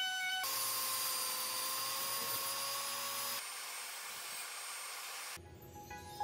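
Woodworking power tool running with a steady high whine over a hiss of cutting noise; the sound changes abruptly twice and drops quieter near the end.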